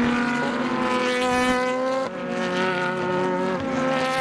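Several Super GT race car engines running at high revs as a pack of cars goes through a corner, their notes overlapping. The engine sound changes abruptly about two seconds in.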